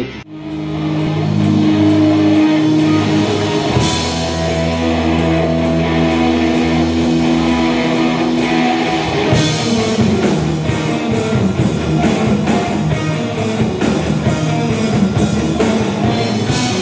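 Rock music with electric guitar and drum kit: long held chords for about the first nine seconds, then a faster, driving beat.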